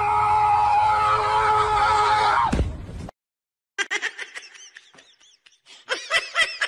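Cat chirping: a run of quick, high, arched chirps, loudest near the end. Before them comes a steady held tone that falls away about two and a half seconds in, followed by a short silence.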